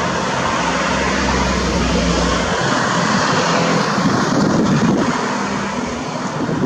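Piper PA-28-161 Warrior II's four-cylinder Lycoming engine and propeller running, a steady engine drone that grows a little louder about four to five seconds in, then eases.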